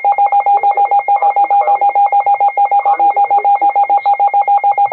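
Emergency alert tone: a loud electronic beep at two pitches together, pulsing rapidly and evenly at about nine beeps a second, with a faint voice beneath it.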